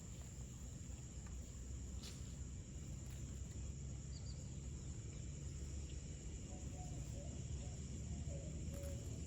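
Faint outdoor ambience: a steady high insect drone over a low rumble of wind on the microphone, with a few faint short bird calls in the second half.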